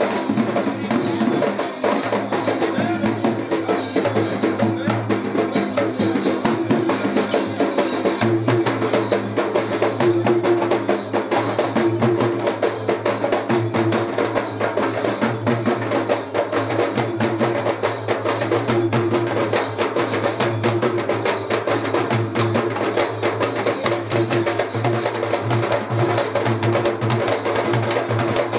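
Sri Lankan low-country ritual drums (yak bera) played by a group of drummers in a fast, dense, unbroken rhythm.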